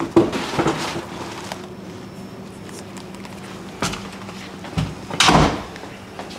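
Louvered closet door being opened and shut: a rattle near the start, a sharp click, and a louder clatter a little after five seconds in.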